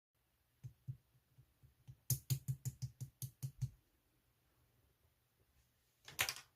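Slime being pressed and squeezed by hand: a quick run of about eight crisp clicking pops, roughly five a second, then a short crackling squish near the end.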